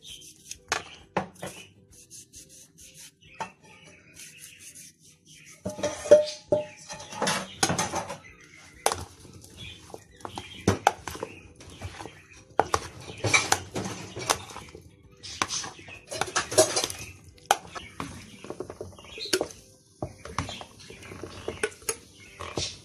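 Cracked green olives in oil and lemon juice being turned over by hand in a plastic tray: irregular wet squelches and clicks, with a metal spoon knocking against the tray. Near the end the olives are pushed by hand into a glass jar.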